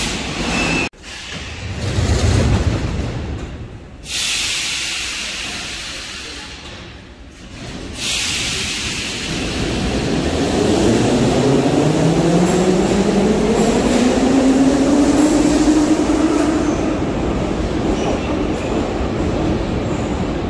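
Metro train departing a station: hissing in the first half, then from about halfway the traction motors' whine climbs steadily in pitch as the train accelerates out, levelling off near the end.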